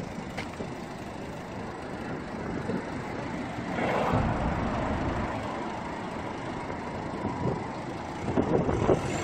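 Hyundai Santa Fe diesel engine running, heard right at the tailpipe. The exhaust note swells briefly about four seconds in and then settles back, as the throttle is blipped during a smoke-emission test.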